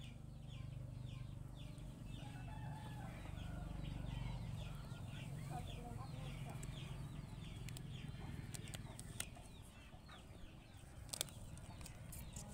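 Chickens peeping and clucking, a run of quick high chirps over a low steady hum; the chirping thins out about two-thirds of the way through. A few sharp crackles near the end, the loudest about a second before the close.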